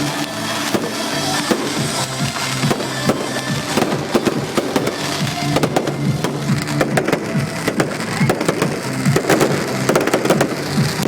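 Fireworks exploding in rapid cracks and bangs, thicker in the second half, over loud music with long held tones.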